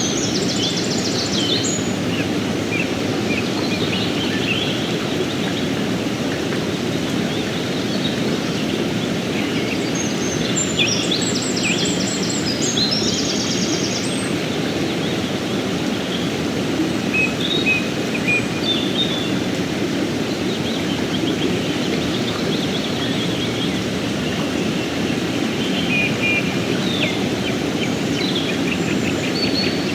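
Fast mountain river flowing steadily over rocks. Birds chirp and trill over it several times.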